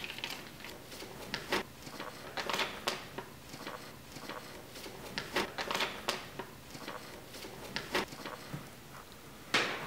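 Sheets of paper rustling as a folded letter is unfolded and handled, in short irregular bursts, the loudest near the end.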